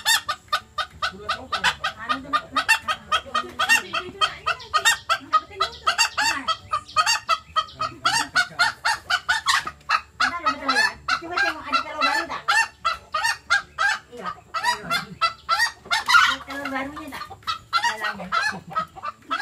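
Hens cackling loudly and without pause, a rapid string of short harsh calls several a second: the egg song that hens give around laying.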